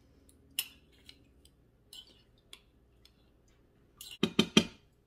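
Metal spoon scraping and clinking against the inside of a glass mason jar while scooping out vinegar-soaked herbs: a few scattered light clinks, then a quick run of louder knocks about four seconds in.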